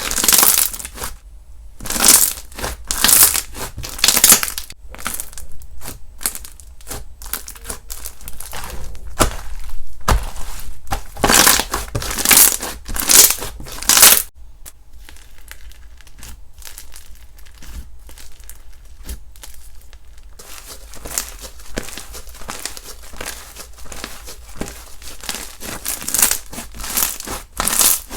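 Slime being squeezed, pressed and stretched by hand, making crackly, squishy noises in uneven bursts, with a quieter stretch in the middle.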